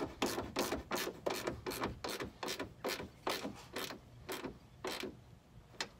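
Socket ratchet clicking in short, even strokes, about three clicks a second, thinning out near the end, as the rear fender-flare fasteners are snugged down.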